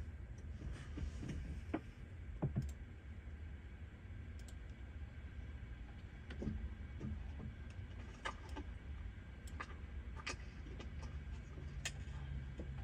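Room tone: a steady low hum with a scattered handful of small, sharp clicks and taps.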